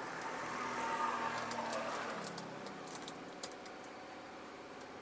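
Crinkling and sharp clicks of thin clear plastic clamshell food containers being handled and snapped shut. A passing vehicle's hum swells and fades over the first couple of seconds.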